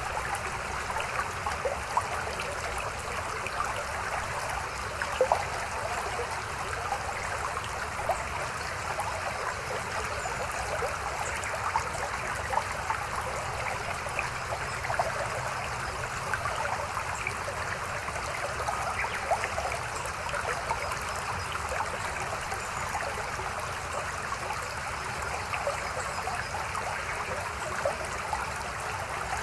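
Mountain stream flowing over rocks: a steady rush of running water with small irregular splashes and trickles.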